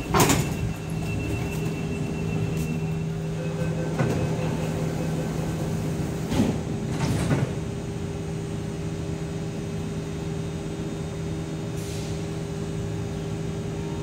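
An MTR East Rail Line electric train standing at the platform, its equipment humming steadily, while the automatic platform gates and train doors slide shut. A loud knock comes just after the start, and lighter knocks about four, six and a half and seven seconds in.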